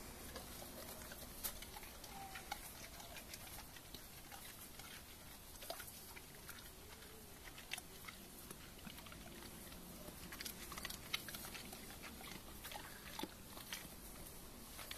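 Dog chewing and biting at cat grass, with irregular soft crunches and clicks.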